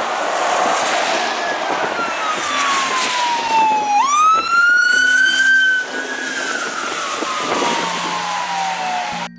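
Emergency vehicle siren: one long falling wail, a quick rise about four seconds in, then a slow fall again. Under it, a steady hiss of tyres on the wet road.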